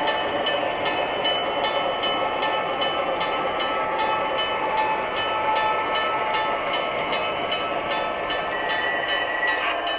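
O gauge MTH Premier Seaboard Centipede model diesel locomotives running along the layout track: a steady mechanical running sound with light, even ticking about three times a second.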